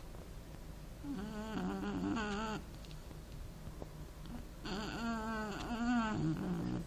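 Snoring: two long snores about three and a half seconds apart, each with a wavering pitched tone.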